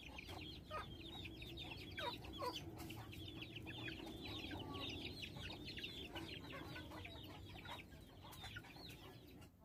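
Faint chickens clucking and chirping, with many short high chirps repeating quickly throughout.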